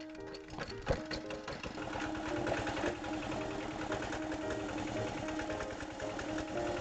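Small diesel engine of a home-built willow-planting trencher running with a rapid, even knocking, driving the spiral cutting blade; it grows louder over the first two seconds, then holds steady.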